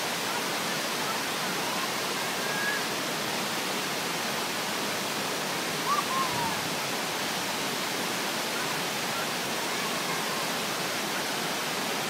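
Cusarare Falls pouring down its rock face and splashing onto the rocks below: a steady, unbroken rush of falling water.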